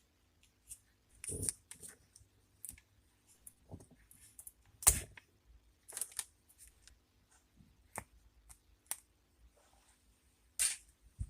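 Scattered small clicks and snaps of a wired earphone being taken apart by hand to free its speakers from the lead. The loudest snaps come about five seconds in and near the end.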